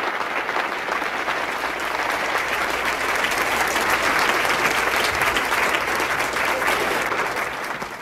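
Audience applauding, building up through the middle and tailing off near the end.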